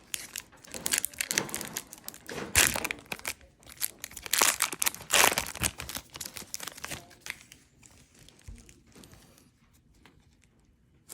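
Foil wrapper of a trading card pack crinkling and being torn open, in loud rustling bursts over the first several seconds, then fading to faint handling of the cards.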